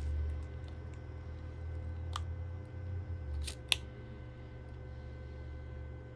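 Small sharp clicks and taps of repair tools and phone parts being handled during a smartphone screen replacement, with the clearest clicks about two seconds in and a quick pair near four seconds, over a steady low hum.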